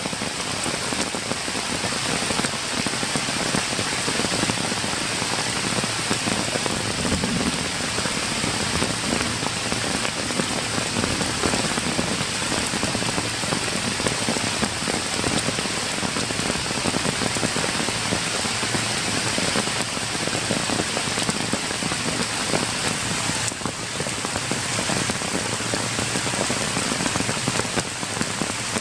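Steady rain falling on wet ground, grass and puddles.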